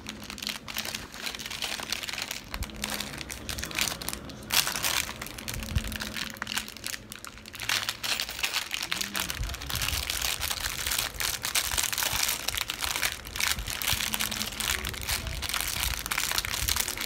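Clear plastic bag of small building-brick parts crinkling with irregular crackles as it is torn open and handled by hand.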